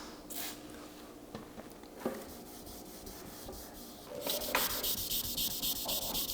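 Wet sandpaper rubbing across a 2018 Ford Raptor's painted door in quick, rhythmic back-and-forth hand strokes, starting about four seconds in. It is wet sanding, cutting down long scratches in the clear coat before compounding.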